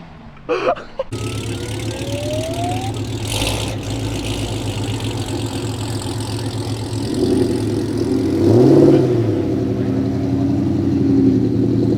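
A car engine idling loudly and steadily close by, with a thin rising tone in the first few seconds and a short rev that rises and falls about eight seconds in.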